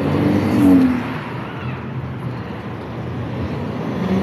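Traffic on a city street: cars running and passing, a steady road noise that swells briefly to its loudest just before the one-second mark.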